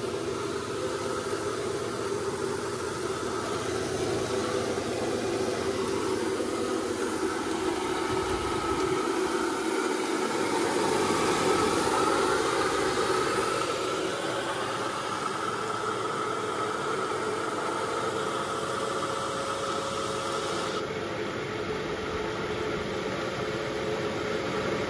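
Small belt-driven rice-hulling mill running steadily, milling paddy with a continuous mechanical drone.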